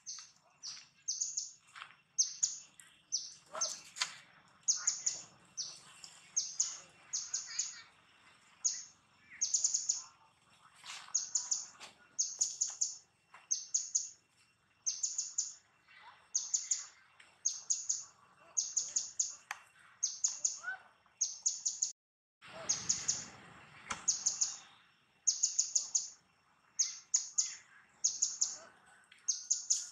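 A bird chirping in a repeated pattern: a quick cluster of two to four high, short chirps about once a second. A little after two-thirds of the way through, the sound cuts out briefly and is followed by a brief rush of noise.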